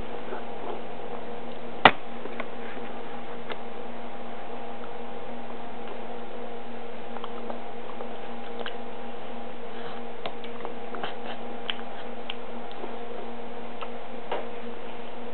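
Baby sucking and smacking on squash-covered fingers: small wet mouth clicks, scattered and more frequent in the second half, over a steady low hum. A single sharp click about two seconds in.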